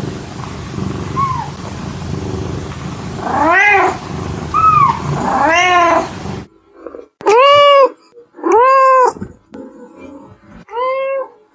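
Kittens meowing: small, high meows over a steady background hiss, then, after a sudden change about six seconds in, three loud, clear meows a second or two apart.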